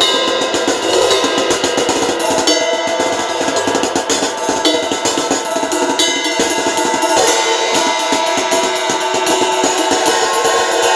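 Music with a drum kit playing throughout: rapid drum and cymbal hits over sustained pitched instruments.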